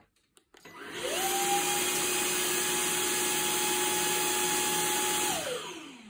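Samsung cordless stick vacuum switched on: its motor spins up with a rising whine about a second in and runs steadily with a high whine over rushing air. Near the end it winds down with a falling whine.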